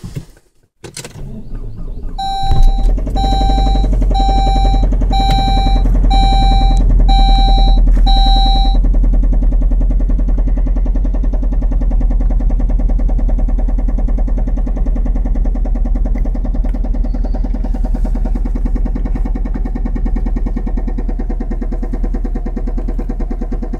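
A 2003 Saab 9-5's engine cranks and starts, then idles steadily while a dashboard warning chime beeps seven times, about once a second. The engine is being checked for a knock that grew louder while driving and was first noticed with the oil about 1.5 quarts low.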